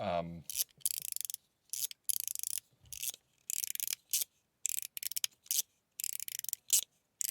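WJ Creation mechanical fidget slider being slid back and forth by hand. It gives a dozen or so short, high-pitched rasping strokes, about one or two a second, with brief silences between them.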